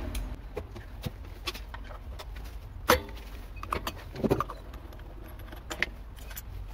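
Scattered metallic clicks and clinks of a ratchet wrench and socket being handled at an engine's flywheel nut, with one sharper click about three seconds in and a few clusters of clinks after it.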